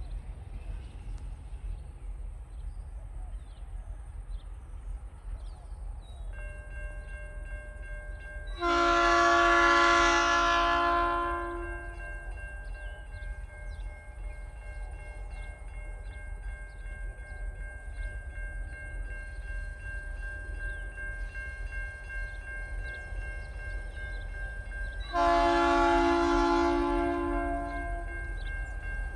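TasRail diesel locomotive 2054 sounding its horn twice, each blast a chord about three seconds long. Under it a steady low rumble, with a steady high whine joining about six seconds in as the coal train approaches.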